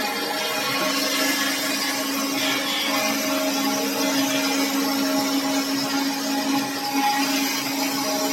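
CNC machine running, its motors giving a steady whine with a held hum under it.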